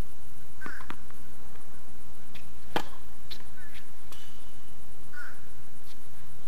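Tennis ball bouncing on a hard court between points: scattered sharp knocks, the loudest a single crack about three seconds in.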